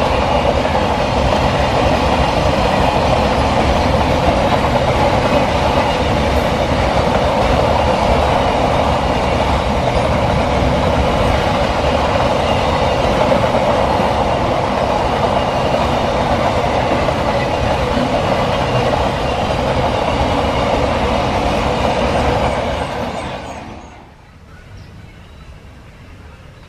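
Container flat wagons of a freight train rolling past at speed: a loud, steady rush of steel wheels on rail. It fades out about three seconds before the end, leaving a much quieter background.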